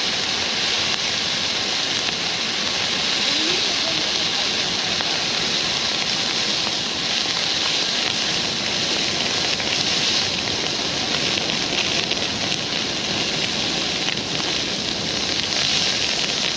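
Bonfire burning hard under a forced air draught: a steady rushing noise with no let-up.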